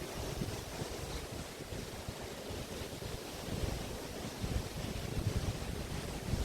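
Waves washing onto a beach, with wind rumbling on the microphone; the gusts grow stronger about halfway in.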